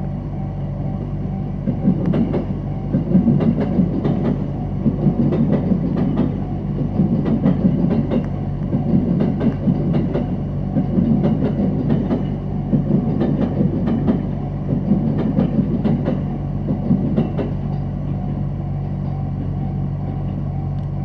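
Electric commuter train passing over a level crossing, its wheels clacking over the rail joints and crossing in an irregular run that lasts about fifteen seconds. A steady hum sounds underneath.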